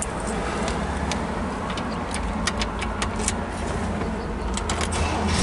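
The 1967 Pontiac Grand Prix's 400 cubic-inch V8 being started: a low rumble that builds steadily, then jumps louder near the end as the engine catches. Scattered light clicks sound throughout.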